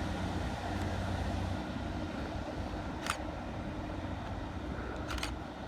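Class 156 diesel multiple unit pulling away, its underfloor diesel engine droning low until the drone drops off about a second and a half in, leaving a steady rumble. Two short sharp clicks come later, about two seconds apart.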